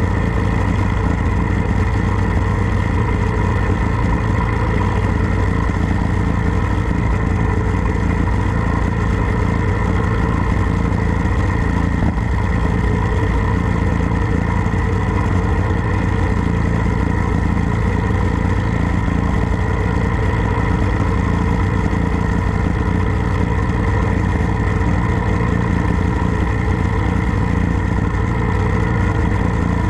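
Harley-Davidson Road Glide's V-twin engine running steadily at an even cruising speed, with the rumble of road and wind underneath.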